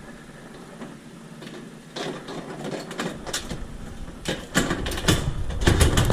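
Metal clicks, knocks and clunks of a heavy Viking range door being worked onto its hinges. They start about two seconds in and grow louder and more frequent, with heavier thuds in the last second and a half.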